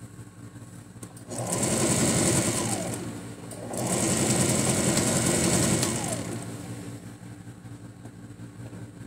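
Domestic electric sewing machine stitching a seam in lightweight fabric in two runs of about two seconds each with a brief stop between, starting about a second in; each run winds down in pitch as the machine stops.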